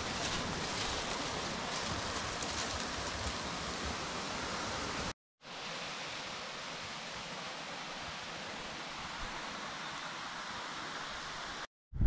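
Steady rushing of a forest creek and its small waterfall. The sound cuts out briefly about five seconds in.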